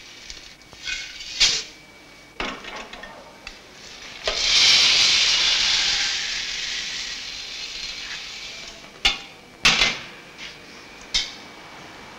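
Dried gin botanicals (berries and seeds) poured from a metal scoop into a still's metal ingredient tray. A loud rushing rattle starts about four seconds in and slowly fades, with a few sharp metal knocks of the scoop before and after.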